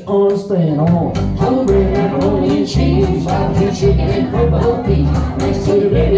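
A string band playing live: banjo, upright bass, acoustic guitar and fiddle, with singing.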